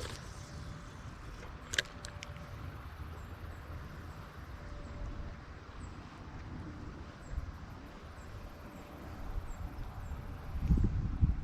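Wind on the microphone: a steady low rumble, with heavy gusts buffeting the mic near the end and one sharp click about two seconds in.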